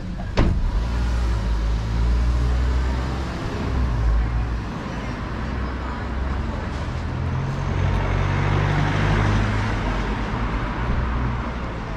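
A car door shuts with a sharp clunk about half a second in, then a small SUV's engine runs as the car pulls away, with more car engine and traffic noise later on.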